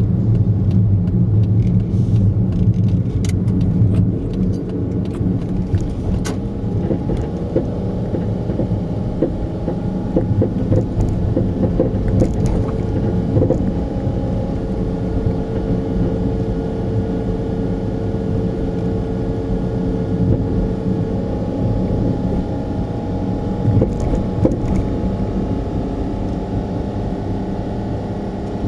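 Honda Life JB6 kei car running, with irregular rattling clicks and knocks from the suspension over the steady road and engine hum. It is an abnormal noise that started after hard driving on a rough farm road; the owner suspects a stabilizer link or a driveshaft.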